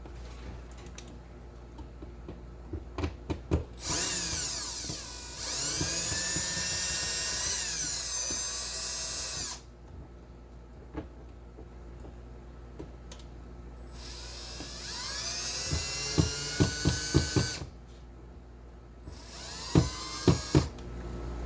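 Small handheld power tool running in three bursts, its high whine rising in pitch as the motor spins up at the start of each. Several sharp knocks come during the second burst.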